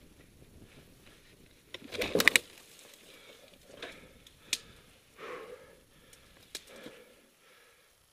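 Heavy breathing close to a helmet microphone, with a loud burst of clanks and rattles about two seconds in and a few sharp clicks from a fallen dirt bike being handled. No engine is running.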